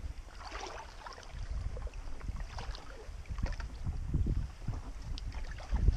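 Shallow creek water sloshing and splashing irregularly as someone wades through it, with wind rumbling on the microphone.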